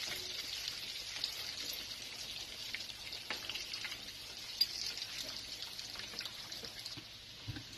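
Egg-and-herb fritters shallow-frying in hot corn oil in a frying pan: a steady sizzle with scattered pops of spitting oil.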